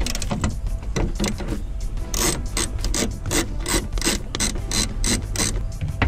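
Ratchet wrench with a T50 Torx bit clicking rapidly while turning a seatbelt mounting bolt, about four clicks a second; the clicks are faint at first and much louder from about two seconds in.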